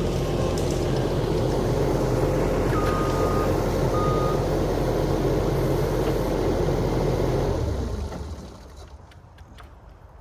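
Skid steer loader's engine running hard while reversing, its backup alarm giving a few short beeps; the engine sound drops away sharply about eight seconds in.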